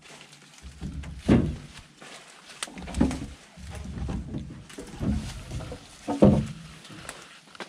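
Irregular heavy thuds of acacia logs being loaded onto a logging truck, about four of them, spaced a second or two apart.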